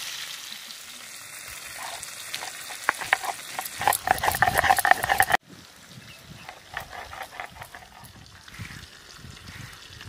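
Rohu fish pieces and roe sizzling in hot mustard oil in a metal wok, a metal spatula scraping and knocking against the pan as they are turned, growing louder about four seconds in. It cuts off abruptly just past halfway, leaving fainter scraping and knocks.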